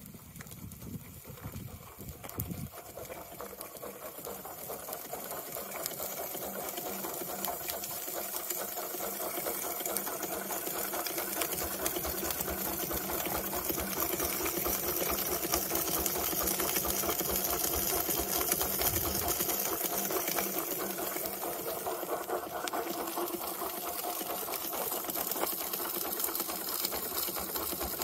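Live-steam 4-inch scale McLaren road locomotive's engine running, its crankshaft, eccentrics and spur gears turning with a fast, steady mechanical clatter that grows louder over the first ten seconds or so. Wind buffets the microphone in the first couple of seconds.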